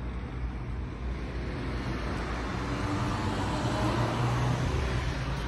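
Road traffic noise: a steady rumble that swells as a vehicle passes about three to four seconds in.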